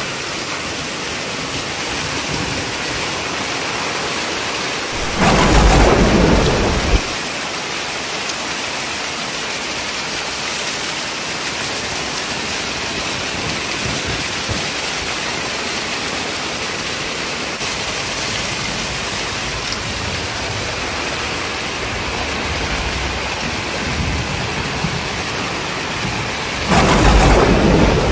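Heavy tropical-storm rain pouring down onto flooded ground, with water gushing and splashing, as a steady hiss. Two loud, deep bursts break through it: one about five seconds in, lasting about two seconds, and another near the end.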